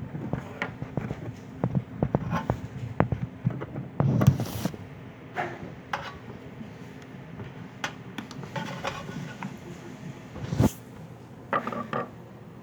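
Hands working inside an opened microwave oven at its door switches: irregular clicks, taps and short scraping knocks of small parts and tools, over a faint low steady hum.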